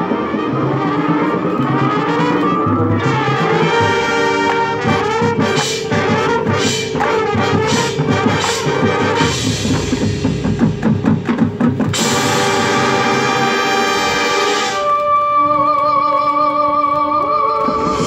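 Marching band playing its field show: brass chords over drums and pit percussion. Through the middle come evenly spaced sharp accents and heavy drum hits, then the brass hold a loud, bright chord for about three seconds before dropping to softer held notes.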